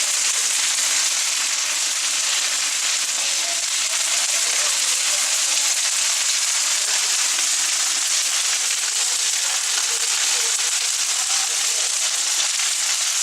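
Large outdoor wood bonfire burning with a steady, dense crackling and hissing, full of fine snaps.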